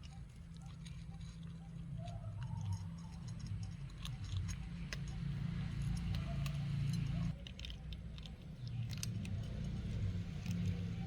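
Pets eating: scattered small crunchy clicks of chewing and nibbling at food, over a steady low rumble.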